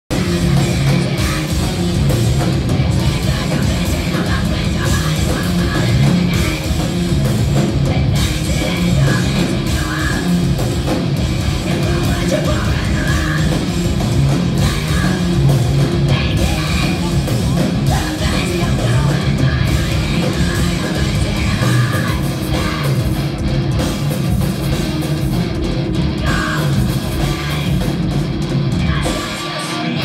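A rock band playing live and loud, with distorted electric guitars, drums and a singer, heard through a phone's microphone in a large, echoing hall.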